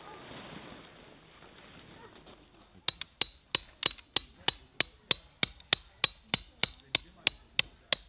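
Hammer driving a tent stake into gravel: steady, evenly spaced strikes about three a second starting about three seconds in, each with a short metallic ring.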